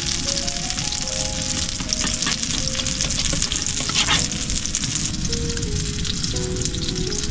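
A steady sizzling, crackling hiss, with background music playing a slow melody of held notes over it.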